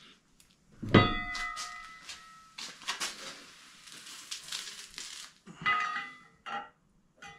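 Metal parts of a lawn mower lift jack being handled during assembly: a sharp metallic clang about a second in that rings for about a second, a few seconds of scraping and shuffling, then a second ringing clink near the end.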